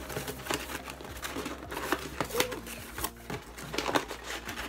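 A cardboard box being handled and opened, its paper packing rustling and crinkling, with many small taps and knocks.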